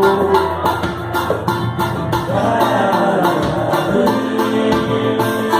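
Live samba band playing an instrumental stretch between sung lines: steady percussion under plucked strings and a melodic line.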